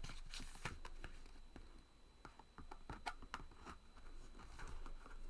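Faint handling noise of packaged papercraft product: scattered small clicks and rustles as the packaging is handled.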